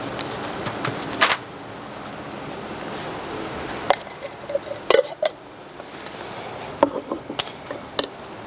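A paintbrush and a small metal can being handled: scattered sharp clinks and knocks as the brush is dipped and tapped against the can's rim and the can is moved.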